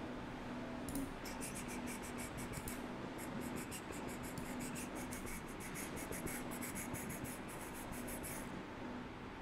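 Rapid run of light clicks from a computer mouse's scroll wheel being turned, over a low steady hum. The clicks start about a second in and stop shortly before the end.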